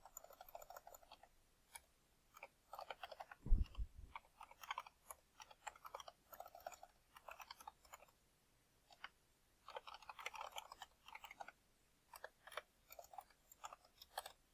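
Typing on a computer keyboard: runs of quick key clicks broken by short pauses. There is one louder low thump about three and a half seconds in.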